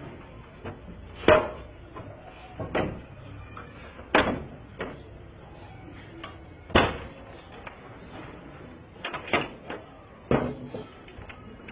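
A padlock and metal hasp on a wooden door clanking and knocking at irregular intervals as the lock is being forced open, with about a dozen sharp knocks and the loudest about a second, four seconds and nearly seven seconds in.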